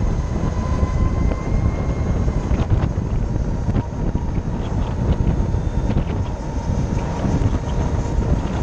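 Harley-Davidson LiveWire electric motorcycle cruising: heavy wind buffeting on the mic, with road rumble and a thin, steady high whine from the electric drive.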